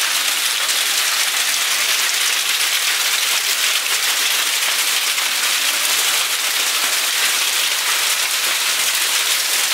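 Hail and heavy rain pelting down, a loud, steady hiss of countless small impacts.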